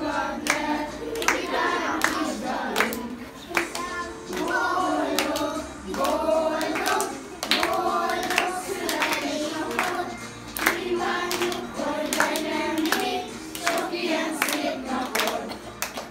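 A group of children and adults singing a birthday song together, clapping along in time.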